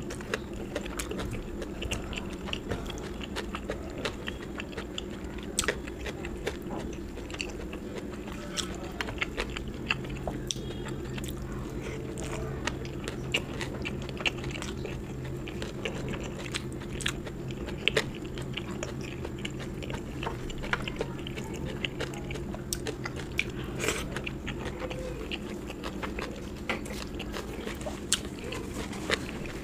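Close-miked eating: a person chewing and biting food, with frequent small, sharp clicky mouth and crunch sounds.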